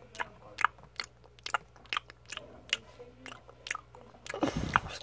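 Crunchy cookie being chewed close to the microphone: irregular sharp crunches a few tenths of a second apart, with a brief low bump about four and a half seconds in.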